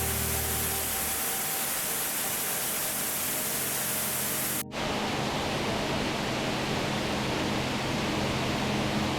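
Steady rushing roar of a waterfall. It cuts off abruptly about halfway through into a duller rushing noise with a low steady hum.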